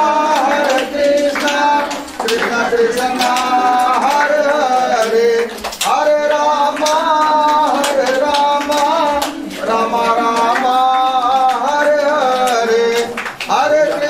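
An aarti hymn sung in long held, gently bending notes, phrase after phrase with short breaks, accompanied by claps.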